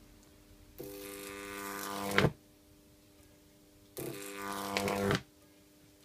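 High-voltage arc between two diverging copper wires, fed by a resonant microwave-oven-transformer stack running on two balanced capacitors. It strikes twice, each time a buzzing hum with hiss that grows louder for about a second and ends in a sharp crack.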